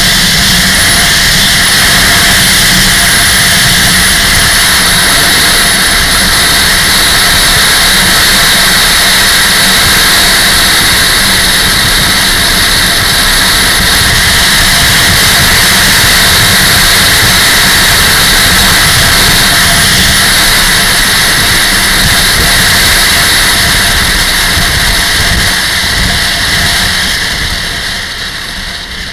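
Motorcycle riding at road speed: a steady, loud rush of wind over the camera's microphone with the engine running underneath, easing off near the end.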